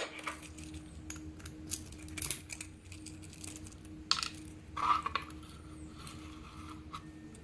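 Scattered small metallic clicks and taps as a pin-tumbler lock and its tools are handled over a pinning tray.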